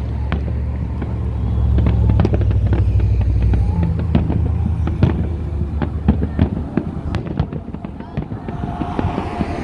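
Fireworks going off: a dense, irregular run of sharp pops and crackles. Under them is a low steady rumble that stops about six and a half seconds in.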